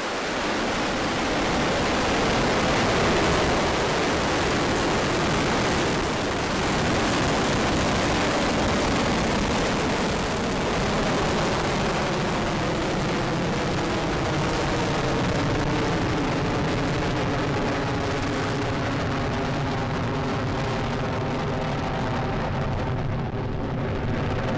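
The Falcon 9 first stage's nine Merlin engines firing at liftoff and through the first climb: a loud, steady rush of rocket noise. A few steady tones show through it in the second half.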